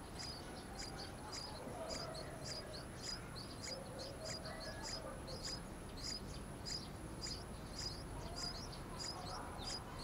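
Yellow-vented bulbul nestlings begging at the nest: thin, high chirps repeated about three times a second, over a faint steady high-pitched tone.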